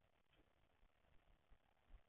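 Near silence: faint microphone hiss with a few soft low knocks, the last near the end the clearest.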